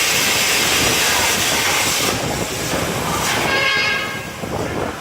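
Plasma cutting torch cutting steel plate: a loud, steady hiss that thins a little after about two seconds, with a brief whistling tone around three quarters of the way through.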